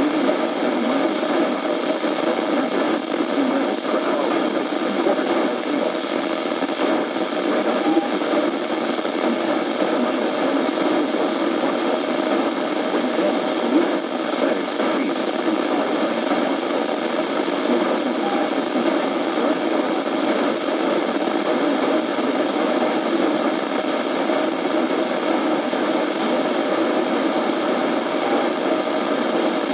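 Steady hiss of radio static from a receiver with no clear signal, unchanging throughout and with no voice coming through.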